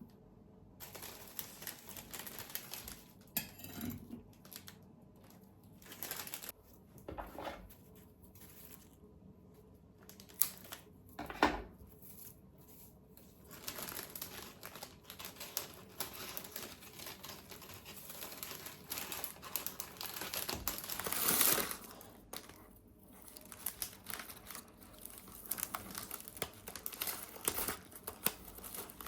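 Wrapping material handled by hand, crinkling in irregular bursts, with a few light knocks.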